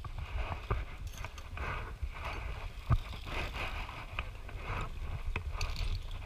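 Low rumble of wind and movement on a body-worn action camera's microphone, with scattered knocks and clicks from footsteps and climbing gear on a suspended wooden log bridge; the sharpest knock comes about three seconds in.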